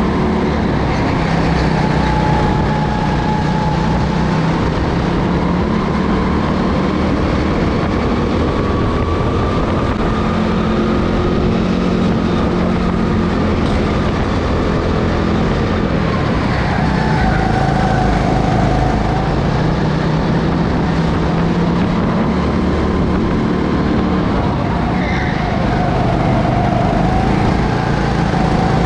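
Go-kart engine running hard during an onboard lap, its note rising and falling as the kart speeds up and slows for corners.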